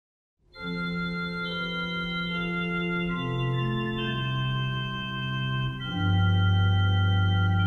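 Organ playing slow, held chords of an instrumental piece, coming in about half a second in; the chords change every second or two and a louder, deeper bass chord enters about six seconds in.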